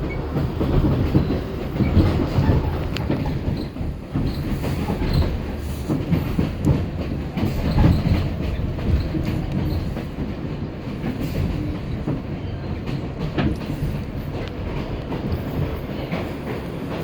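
Interior of an R62A subway car running at speed: a steady low rumble of wheels on rail with irregular clicking and clattering from the track joints.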